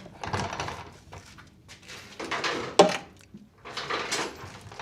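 Metal hand tools clattering and clinking as a longer ratchet is fetched from a toolbox, with one sharp metallic clank about three seconds in.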